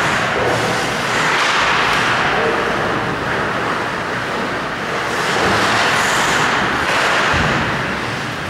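Hockey skates scraping and carving across rink ice during play: a steady rushing hiss that swells and eases every second or two.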